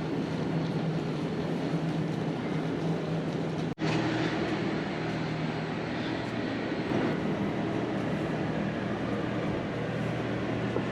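Steady rumble of a train, with a constant low droning hum. The sound drops out for an instant about four seconds in, then carries on unchanged.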